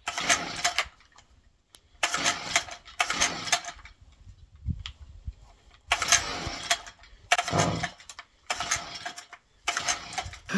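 Stihl strimmer's two-stroke engine being pull-started: about seven quick tugs on the recoil cord, each a short whirring rasp, and the engine does not catch.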